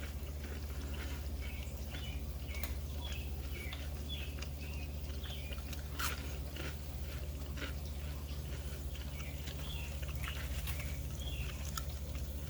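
A person chewing a bite of breaded fried white perch, with scattered crunchy clicks from the breading. A steady low hum runs underneath.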